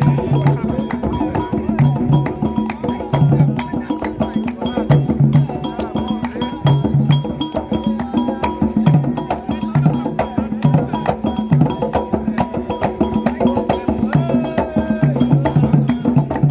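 Candomblé drumming: atabaque hand drums played in a fast, steady ritual rhythm, under a dense stream of sharp struck clicks.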